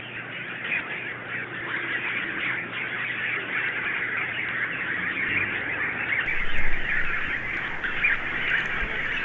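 A dense, continuous chatter of squawking bird calls, with a louder swell about two-thirds of the way through.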